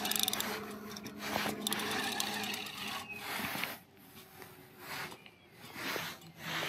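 Feeder spinning reel whirring with a fine rapid clicking in about four bursts, under the load of a heavy fish being played.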